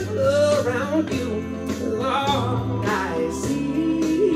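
Band music with a singer's voice: sung lines gliding in pitch over steady bass notes.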